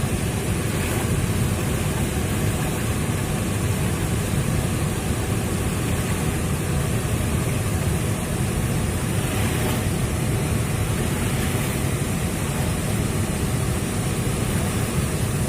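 Steady, loud rushing of floodwater and surf, a continuous heavy noise with no breaks.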